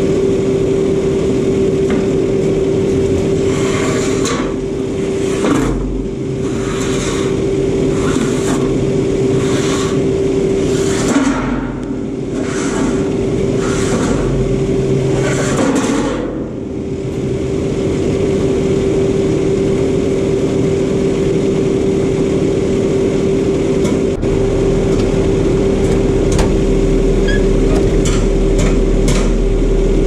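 Compact track loader's diesel engine running steadily with a constant hum. In the first half there is a run of short rushes of noise, roughly one a second.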